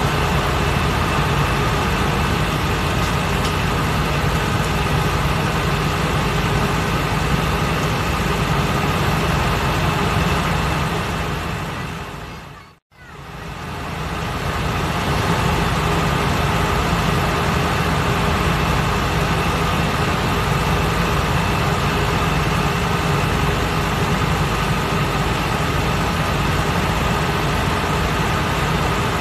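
Running noise of a Mitsubishi Fuso Aero King double-decker bus heard inside the upper deck: a steady engine rumble with road and cabin noise. It fades out to silence about 13 seconds in and fades straight back in.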